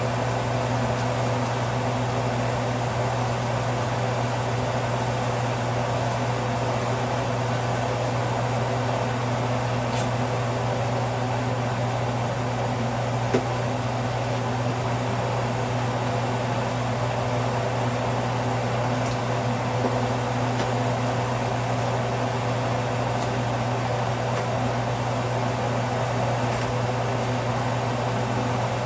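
A steady mechanical hum with a low drone and an even hiss, like a running fan, unchanging throughout. A few faint knife taps on a plastic cutting board as green chili peppers are sliced.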